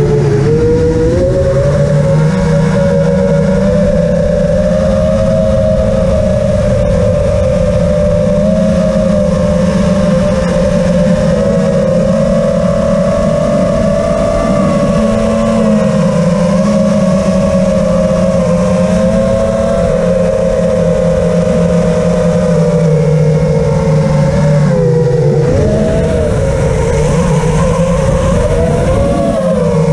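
FPV quadcopter's brushless motors and propellers whining loudly in flight, heard from the drone's own camera. The pitch rises and falls with the throttle and dips briefly about a second in and again about 25 seconds in.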